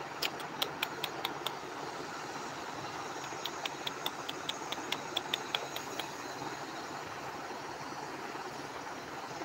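Steady rushing background noise with two runs of quick, light clicks, about five a second: a short run in the first second and a half, and a longer one from about three and a half to six seconds in.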